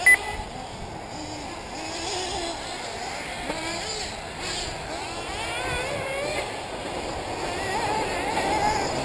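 Several 1/8-scale nitro RC buggies' small two-stroke glow engines racing around the track, their high-pitched buzz rising and falling as they rev and ease off through the corners and jumps. A short high beep sounds just after the start.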